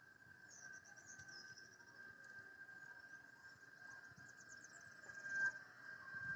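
A faint, steady high-pitched tone held without a break: the strange noise in the sky being recorded. Birds chirp over it in quick high trills, about half a second in and again around four to five seconds.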